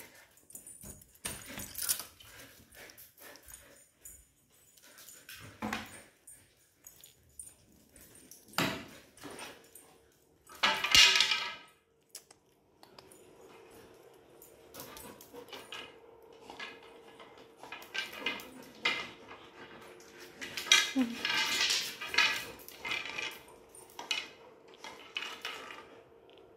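Golden retriever carrying a long stick in its mouth, the stick knocking and scraping against the tiled floor and door frame in many short clicks and clatters. The dog gives short vocal sounds about 11 seconds in and again around 21 seconds.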